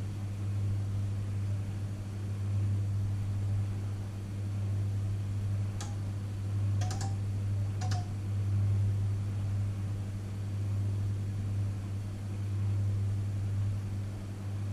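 Panasonic inverter microwave oven running with a steady low hum that swells and fades slightly every couple of seconds. A few faint clicks come about six to eight seconds in.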